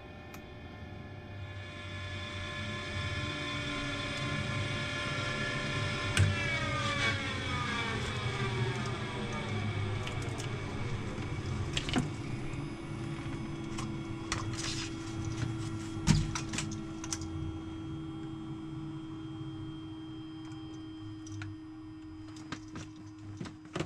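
Cessna 208 Caravan's Pratt & Whitney PT6A turboprop heard from the cockpit as it winds down after shutdown. Its whine falls in pitch from about six seconds in, with a few sharp clicks along the way. A steady hum stays on after the engine has run down.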